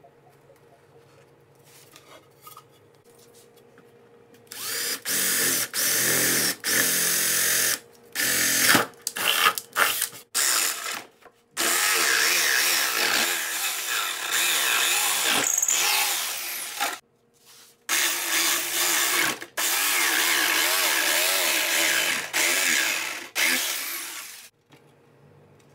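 Jigsaw cutting a circular hole in a plywood disc. The saw starts and stops in short bursts at first, then runs in long stretches with one brief pause, and stops near the end.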